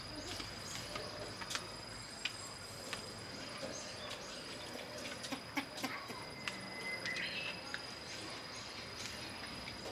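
Garden ambience: a steady, high-pitched insect trill with scattered sharp clicks, and a short bird chirp about seven seconds in.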